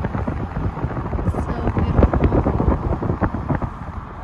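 Wind buffeting a phone's microphone held out of an open car window while driving: a loud, irregular low rumble that eases slightly near the end.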